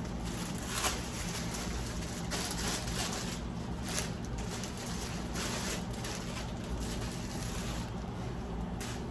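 Light handling sounds, a few faint clicks and rustles, over a steady low hum.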